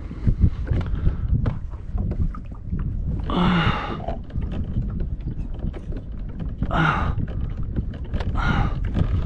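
Clicks and knocks of fishing tackle being handled aboard a kayak as tangled trolling lines are worked free, over a low rumble of wind on the microphone. Three short grunts break in, about three and a half, seven and eight and a half seconds in.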